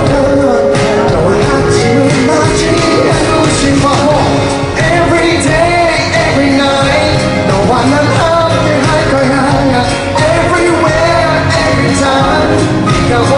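A male singer singing a pop song live into a handheld microphone over a band, with drums beating steadily.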